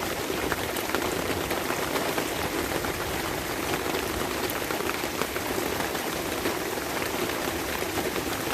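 Steady rain falling during a thunderstorm, an even hiss dotted with many small drop ticks.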